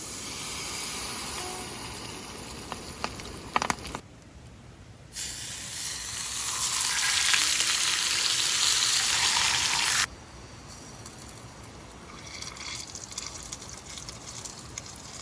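Food frying in hot oil, a steady sizzle heard in a few edited stretches. It is loudest in the middle and fainter near the end, with a few sharp clicks a few seconds in.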